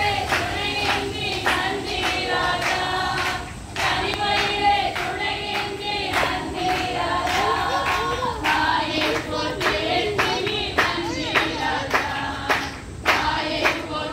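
A song with singing voices over a steady sharp beat of about two strokes a second, with a brief dip about three and a half seconds in.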